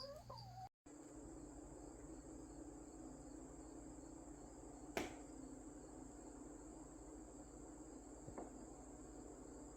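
Faint, steady chorus of crickets trilling, with a single sharp click about five seconds in.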